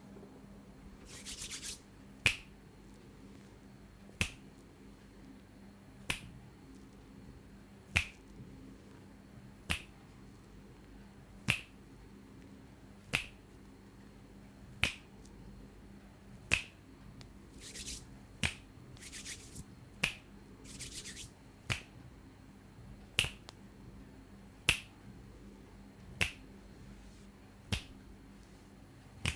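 Hand pops from a head massage: single sharp snaps at a steady pace, about one every second and a half to two seconds. A few short rustling hisses come between them.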